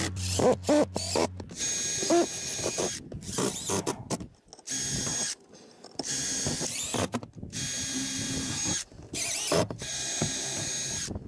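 Cordless DeWalt driver running in several short bursts with gaps between them, driving screws into metal roof valley flashing, with a few clicks and knocks early on.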